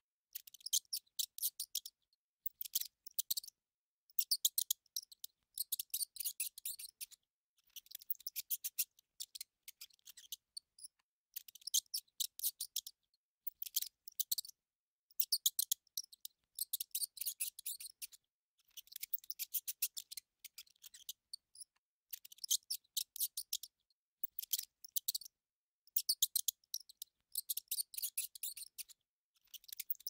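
Rat sound effect: bursts of rapid, high, dry clicking, each about a second long, repeating roughly every two seconds with short pauses between.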